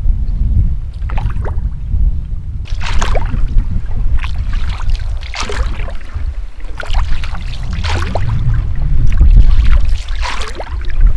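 Canoe paddle strokes in the water, each one a splash and gurgle, coming about once every second or so over a steady low rumble.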